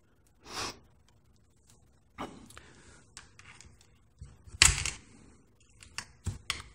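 Scattered small clicks and taps of a soldering iron and tweezers being handled on a workbench, with one louder knock about four and a half seconds in.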